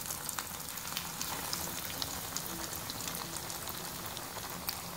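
Breaded potato cutlets shallow-frying in hot oil: a steady sizzle dotted with many small crackles and pops.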